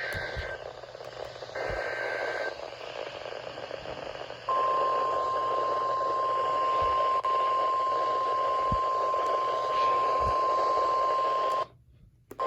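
NOAA Weather Radio Emergency Alert System alert received with steady static hiss: the end of one SAME header data burst and then another short buzzy two-tone data burst about two seconds in, followed about two seconds later by the steady 1050 Hz warning alarm tone, held for about seven seconds and cut off suddenly near the end. The sequence marks a Severe Thunderstorm Warning being issued.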